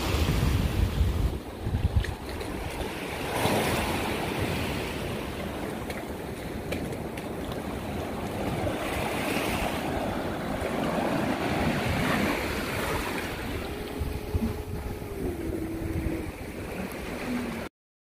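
Small sea waves washing and lapping against a concrete seawall and breakwater blocks, with wind buffeting the microphone in the first couple of seconds. About fourteen seconds in, a faint held tone steps down in pitch, and the sound cuts off just before the end.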